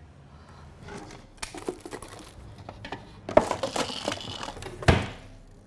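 Rummaging through a wooden drawer: objects rustling and clattering, with two sharp knocks, the louder near the end.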